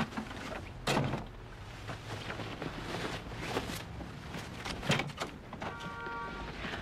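An apartment door being handled and opened: sharp knocks and clicks, one about a second in and another near five seconds. A short, steady, pitched tone sounds just before the end.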